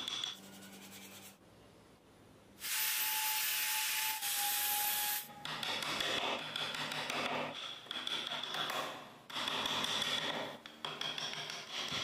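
Sanding on a carved wooden car body. After a quiet start there is a loud, even stretch of about two and a half seconds, followed by a run of shorter, uneven rubbing strokes with brief pauses between them.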